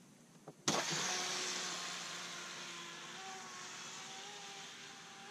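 RC jet boat taking off at full throttle. Its jet pump sprays water with a loud hiss over a steady motor whine. The sound starts suddenly just under a second in, then slowly fades as the boat pulls away.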